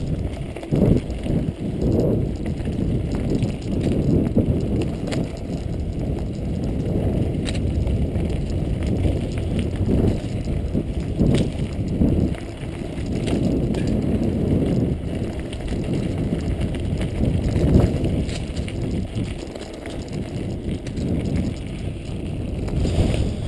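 Mountain bike rolling over a rough dirt and gravel trail: a steady, uneven low rumble from the tyres and frame, with scattered clicks and rattles from the bumps.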